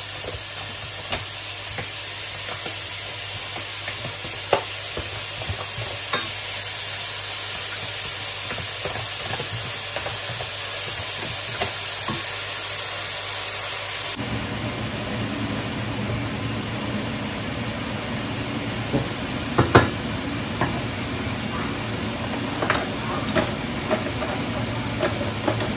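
Cooking on a stove: a steady sizzling hiss. After a cut about halfway through, scattered sharp clinks and knocks of a utensil against a pan or pot sound over the cooking noise.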